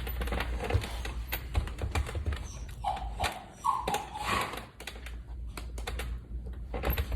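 A small dog whining briefly, two short whines about a second apart near the middle, among scattered clicks and knocks.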